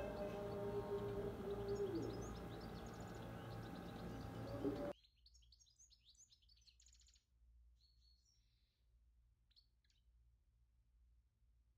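Background music with long held notes that cuts off suddenly about five seconds in, leaving faint birds chirping in short bursts of high calls.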